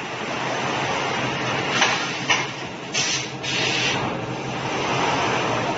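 Automatic bag palletizer running: a steady mechanical hum with short hisses of air, two close together about two seconds in and a longer one about three seconds in.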